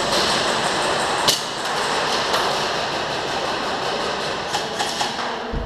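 Steady rattle of airsoft guns firing in a large indoor hall, with a sharp crack about a second in and a few clicks near the end.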